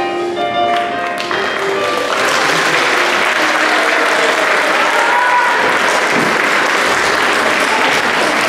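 Recorded music plays its last few notes, then stops about two seconds in. An audience applauds steadily after that.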